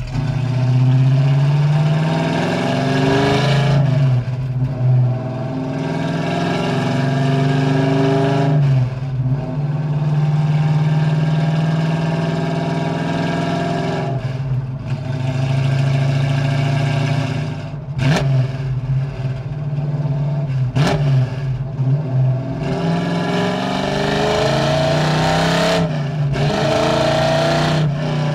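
Exhaust of a 1965 Ford Mustang's mildly built 289 V8, breathing through full-length headers, an X-pipe and Black Widow Venom 250 mufflers, pulling through the gears. The engine note rises under acceleration and falls back again several times.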